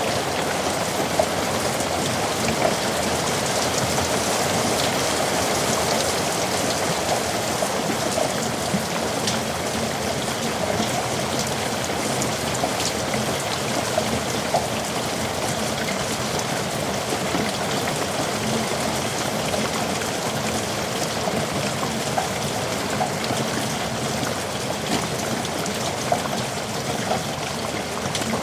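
Heavy rain falling steadily in a yard, with the patter of individual drops on hard surfaces over a dense hiss.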